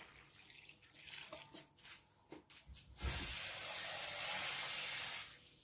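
Light clicks and knocks, then, about three seconds in, water poured in a steady stream into the pot of sautéed mung beans and chicken for about two seconds, stopping sharply.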